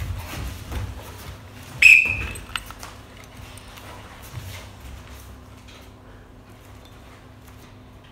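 Kyokushin karate sparring: a run of soft thuds from gloved punches landing on padded chest protectors and feet moving on tatami mats, busiest in the first few seconds, with a short, sharp high-pitched sound about two seconds in.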